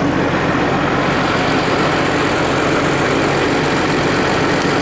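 New Holland T7.210 tractor's six-cylinder diesel engine running steadily, heard close by.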